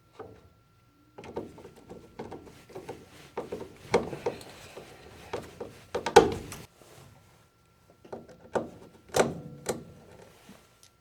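Irregular clicks, taps and knocks of small parts and tools being handled as pressure switches are screwed and clipped back onto a furnace inducer motor, with the sharpest knocks about four, six and nine seconds in.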